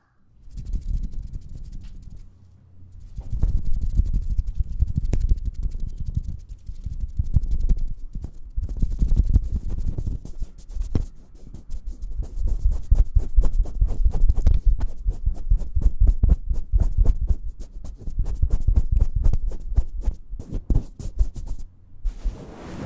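ASMR kissing and lip-smacking right against the microphone: rapid wet clicks, many a second, over a low rumble, in long runs broken by a few short pauses.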